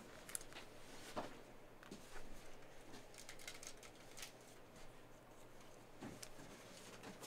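Faint, scattered clicks and rustles of trading cards being handled and set down.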